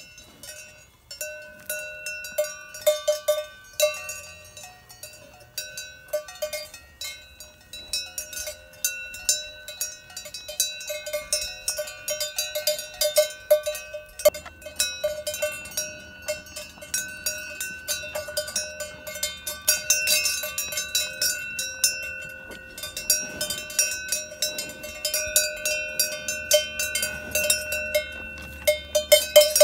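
Cowbells on grazing young cattle clanking irregularly, many strikes a second, as the animals move their heads to feed, the bells ringing on between strikes.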